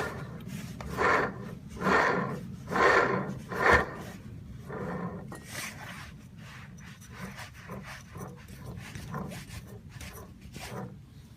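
Honda Live Dio ZX two-stroke scooter running with a rough, growling grinding from a failed bearing, surging loudly about once a second four times, then continuing as weaker, quicker pulses. The owner ties the bearing failure to gear oil that was never changed.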